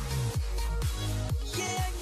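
Background music with a steady beat and deep bass notes that slide down in pitch; a higher melody comes in about one and a half seconds in.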